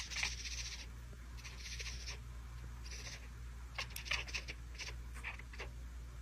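Long-haired grey cat chattering: several short bursts of rapid, high-pitched clicking chirps.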